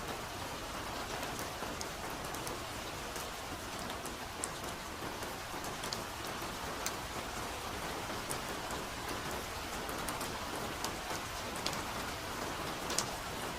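Steady soft rain falling, an even hiss with scattered sharp drip ticks, the sharpest near the end.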